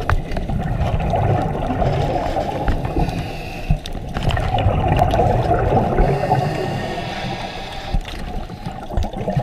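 Muffled underwater rushing noise picked up by a diving camera's microphone in the water, with a few faint clicks scattered through it.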